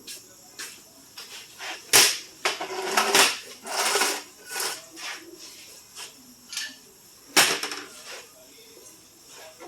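Knocks and scraping from dent-repair work on a car body panel: two sharp, loud strikes, one about two seconds in and one past seven seconds, with lighter taps and rough scraping between.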